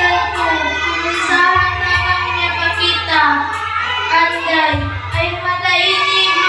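A group of children singing a farewell march over an instrumental accompaniment, with a low bass and a steady, evenly ticking beat.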